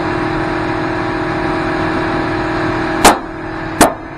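Tyre-changing machinery running with a steady hum. About three seconds in come two short, sharp blasts, under a second apart, and the hum drops after the first.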